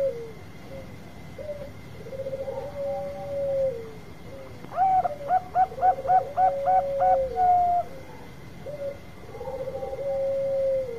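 Zebra doves cooing. A soft rolling coo ending in a long drawn-out note repeats about every three seconds. About five seconds in, a louder, higher run of about eight quick staccato coos ending in a longer note overlaps it: a second dove calling at the same time.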